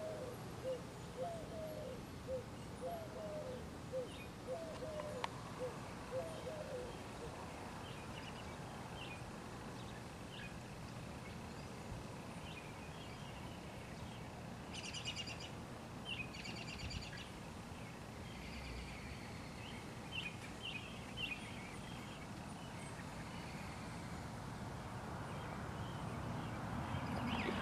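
Quiet outdoor garden ambience with birds calling. A series of short, evenly repeated low notes runs through the first seven seconds, followed by scattered higher chirps and two brief high trills about halfway through, over a steady low background noise.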